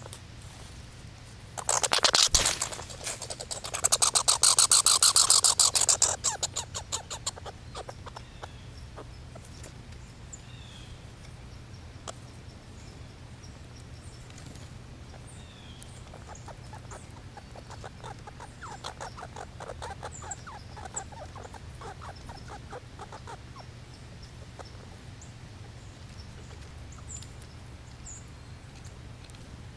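Squirrel chattering in rapid pulsed runs: a loud run about two seconds in, another from about four to six seconds, then a fainter run around nineteen to twenty-three seconds. A steady low hum sits underneath.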